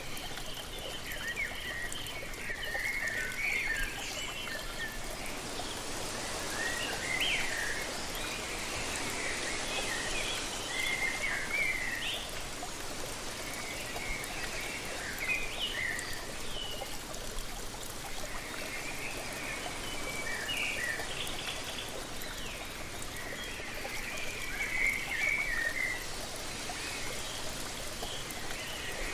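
Waterfall or cascading water rushing steadily, with songbirds chirping in short repeated phrases over it throughout.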